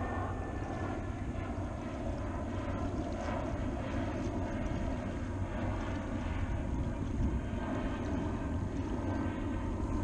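Steady drone of a propeller airplane flying overhead, with water swishing around the legs of a person wading through shallow water.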